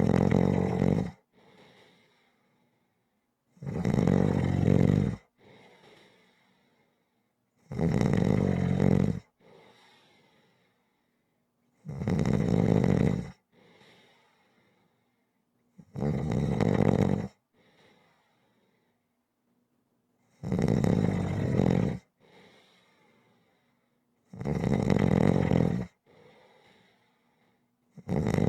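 Snoring in a steady rhythm: a snore about every four seconds, each lasting just over a second and followed by a faint breath.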